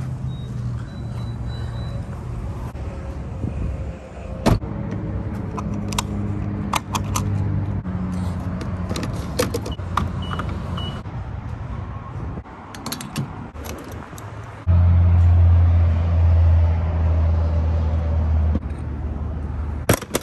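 Fuel-pump handling at a gas station: clicks and clatter as a pump nozzle is lifted and a grade button pressed, over a steady low vehicle hum. A car door shuts with a single loud thump about four and a half seconds in. From about fifteen seconds a much louder low hum comes in for some three seconds and then drops away.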